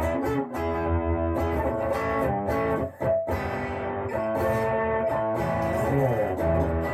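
Electric guitar, a Harley Benton Telecaster on its bridge (treble) pickup, played through an amp: strummed chords and held notes, with a short break about three seconds in and notes gliding in pitch near the end.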